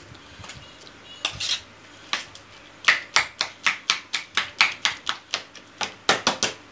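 Metal spoon clinking and scraping against a stainless steel pan while mashing roasted eggplant, tomato and pepper. A few separate strokes come first, then from about three seconds in a quick run of clinks, about four a second.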